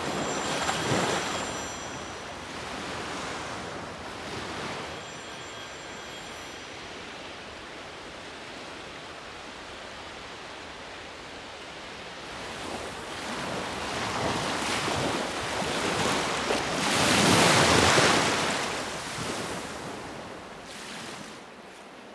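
Sea waves washing in on a sandy beach, rising and falling in slow swells, with the biggest swell building to a peak about three-quarters of the way through and then ebbing.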